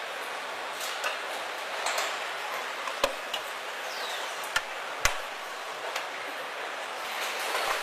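Car assembly line ambience: a steady machinery hiss broken by sharp metallic clicks and clanks about once a second, the loudest about five seconds in.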